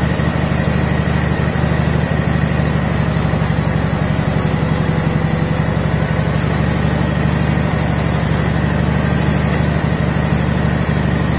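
1979 John Deere 317 garden tractor's Kohler twin-cylinder engine running steadily, loud and unchanging.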